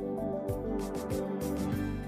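Background music: soft instrumental track with held notes and a steady beat.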